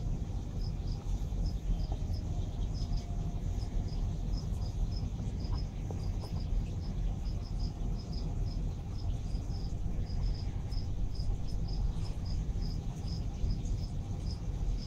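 Steady low hum of running reef-aquarium equipment, with a rapid, uneven series of short high chirps, about two to three a second, over it.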